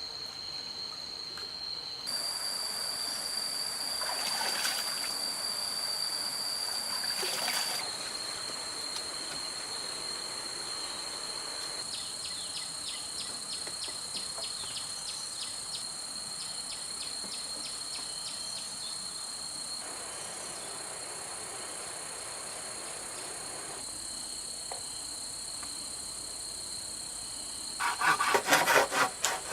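Rainforest insects keep up a steady high-pitched shrill, changing abruptly a few times. Near the end, rhythmic back-and-forth sawing of wood starts and becomes the loudest sound.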